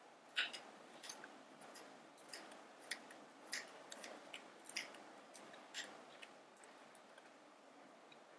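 A miniature knife slicing a tiny garlic clove on a small wooden cutting board: light, sharp clicks of the blade meeting the board at an uneven pace of roughly one a second, ending about six seconds in.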